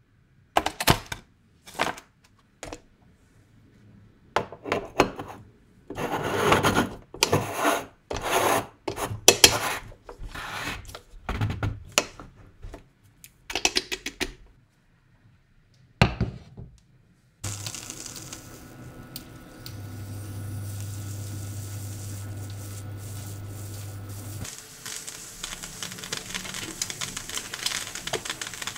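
An aluminium Bialetti moka pot being handled: ground coffee scraped and packed in the metal filter basket and the pot's halves screwed together, a run of scrapes and knocks. A little past halfway this gives way to a steady hiss with a low hum as the pot heats on the hob, turning to a finer crackle near the end as the coffee starts to brew.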